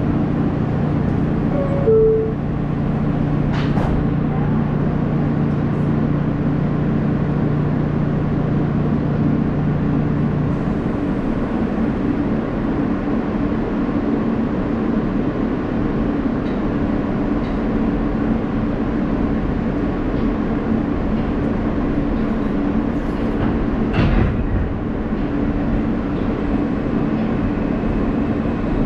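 Inside an R160A subway car: a short two-note falling door chime about two seconds in, a knock as the doors shut, then the train running along the track with a steady rumble and hum. A low hum drops away about ten seconds in, and there is another knock near the end.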